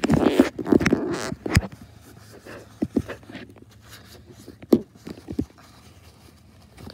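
Handling noises from toy baby dolls and a paper towel: a burst of rustling and knocks in the first second and a half, then a few single sharp taps.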